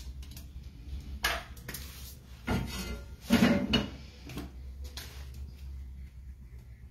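Knocks and clatter of a metal frying pan being moved and set down on a gas stove's grate, with kitchen items handled; a few separate knocks, the loudest cluster about three and a half seconds in, over a low steady hum.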